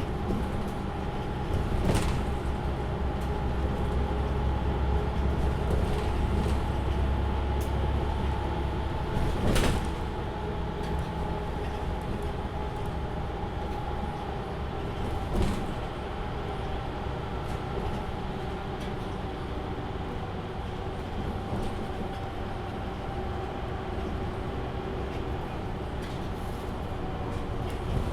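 Inside a MAN Lion's City A37 NL293 low-floor city bus on the move: the engine and drivetrain run steadily with road noise. There is a heavy low rumble for the first nine seconds or so, then a lighter drone, and cabin rattles and knocks come about two seconds in, near ten seconds and near the middle.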